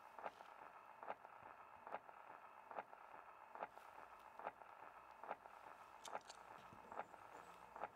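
Faint phonograph record surface noise: a steady hiss with a sharp click repeating a little more than once a second, as a spinning record turns under the stylus.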